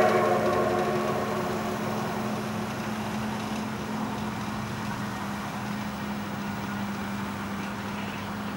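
A steam locomotive's whistle dies away in the first second. After it comes a steady engine-like hum with one constant tone over a low rush, while the train is still far off.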